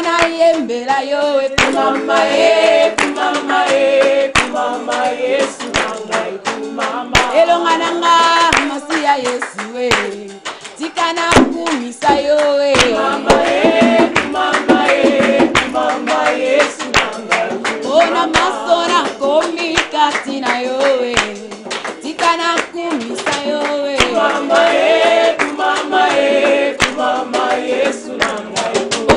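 Women's voices singing a gospel worship song together, with hand claps keeping a steady beat about every second and a half.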